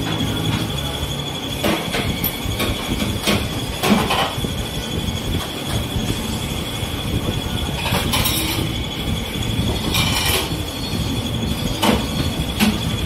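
Steady rumble of kitchen machinery with a thin, high, steady whine. About six sharp metallic clinks or knocks break through it.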